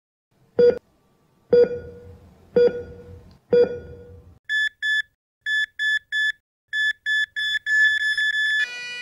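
Four deep thuds about a second apart, then heart-monitor beeps in twos and threes that quicken into a rapid run and become a continuous flatline tone near the end: the sound of a heart monitor flatlining.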